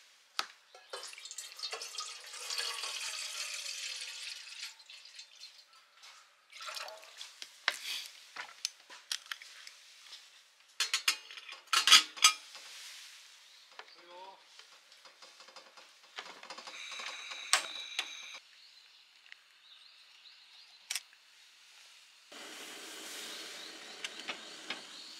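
Water poured from a plastic bottle into a stainless steel camping kettle, followed by sharp metal clinks and clacks of the kettle's lid and wire handles, loudest about twelve seconds in. A steady rush of water sound returns near the end.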